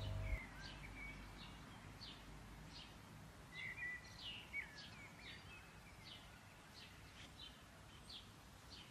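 Faint bird chirping: a string of short, high chirps about two a second, a few louder ones near the middle, over a low steady hiss.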